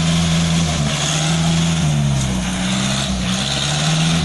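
Off-road vehicle's engine running under load, its speed rising and falling over and over as the throttle is worked.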